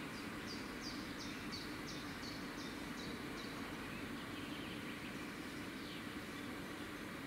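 A bird singing a run of about ten short, high, falling notes, about three a second, over steady outdoor background noise with a low hum.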